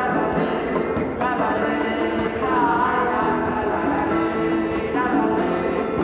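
Live street music: an acoustic guitar played under a singing voice holding long, gliding notes.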